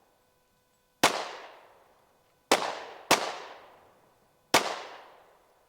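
Handgun shots fired one at a time at an uneven pace: four sharp reports and a fifth at the very end, each followed by a long fading echo.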